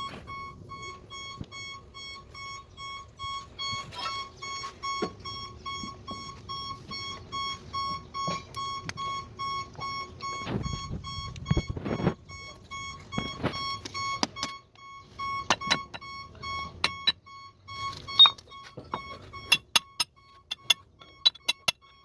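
Electronic warning buzzer beeping in a fast, even pulse. It is joined by scattered metallic knocks, a heavier low thud about 11 seconds in, and a quick run of sharp taps near the end.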